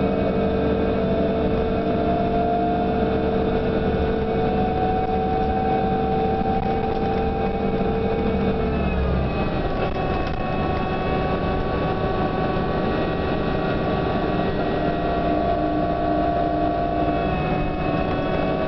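Inside a New Flyer DE42LFA diesel-electric hybrid bus on the move: a low engine drone with several steady whining tones from the hybrid drive. About halfway through, the low drone drops away and the whines shift pitch. Near the end, one whine glides down.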